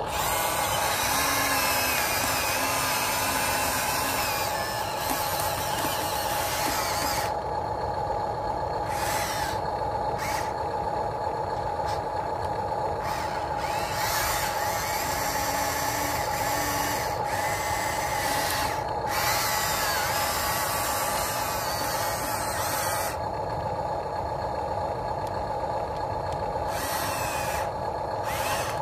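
HuiNa 1593 RC excavator's electric motors and gearboxes whining steadily as it swings its upper body and works its boom, with a higher, rougher gear whine that cuts in and out every few seconds as different functions run.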